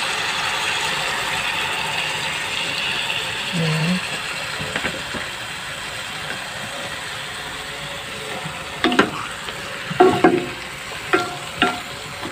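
Squid sizzling steadily in a stainless steel pot, cooking dry with no water added. Several sharp knocks come in the last few seconds.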